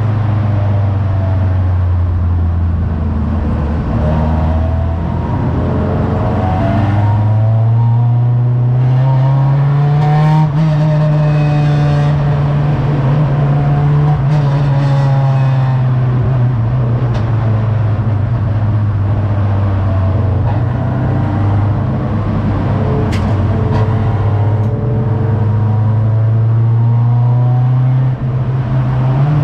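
Race car engine under load, heard from inside the stripped cockpit: its pitch climbs steadily a few seconds in, holds high, then slowly falls away, with a brief lift of the throttle near the end. Tyre and spray hiss from the wet track runs underneath.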